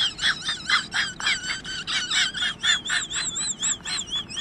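High-pitched chirping, about five chirps a second, joined after about two and a half seconds by a warbling whistle that wavers quickly up and down.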